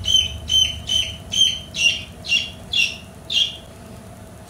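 Baby chick peeping loudly and repeatedly, about two peeps a second, stopping about three and a half seconds in.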